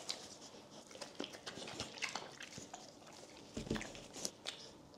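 Pit bull-type dog biting and chewing pieces of steak close to the microphone: a string of short wet clicks and smacks, with a low thump about three and a half seconds in.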